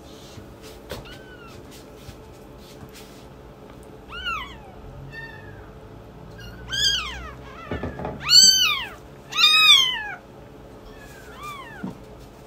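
Newborn kittens mewing: a series of high cries that rise and fall in pitch. They are faint at first and loudest twice, about eight and a half and nine and a half seconds in.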